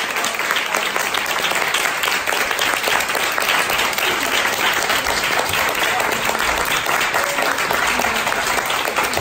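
Audience applauding steadily, many hands clapping in a dense, even patter at the end of a song.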